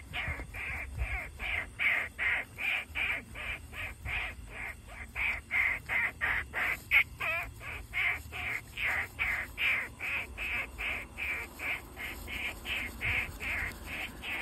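Rapid, steady series of short harsh animal calls, about two or three a second without a break.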